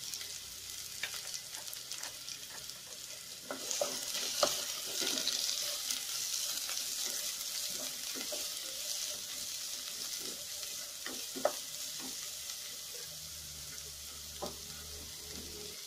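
Chopped onion sizzling in hot oil in a nonstick pot, with the light scrapes and taps of a spoon stirring it. The sizzle grows louder about four seconds in.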